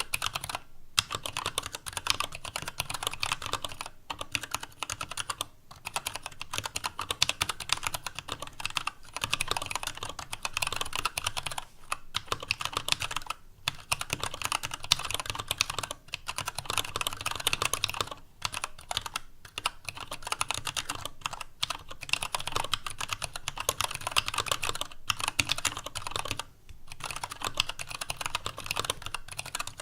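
Typing on a TADA68 65% mechanical keyboard with Gateron Brown tactile switches, a stainless steel plate and PBT keycaps: a fast, continuous run of key clacks with brief pauses every second or two. The case's sound is hollow, which the owner puts down to the empty space inside it, and there is desk noise under the keys.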